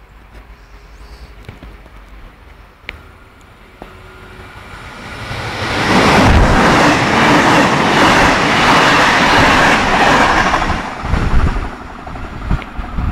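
Trenitalia E.464 electric locomotive hauling a regional train through the station: a rumble that builds as it approaches, then a loud rush of wheels and air for about five seconds as it passes. Near the end comes a run of sharp wheel clacks over the rail joints as the last coaches go by.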